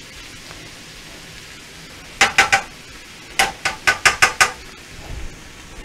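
Ground beef and onion sizzling in a skillet while a spatula knocks against the pan: three quick ringing strikes about two seconds in, then six more about a second later.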